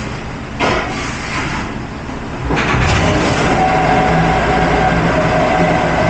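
Commercial dishwashing machine running with a steady mechanical drone, stepping up louder about two and a half seconds in and holding a steady hum. A single sharp clank comes shortly before, under a second in.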